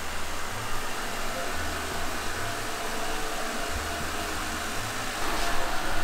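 Robot vacuum cleaner running: the steady whir of its suction fan.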